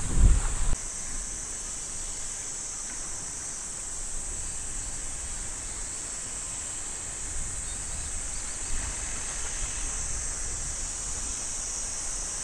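A steady, high-pitched chorus of summer insects droning without a break. A gust of wind buffets the microphone in the first second, and fainter wind rumble carries on underneath.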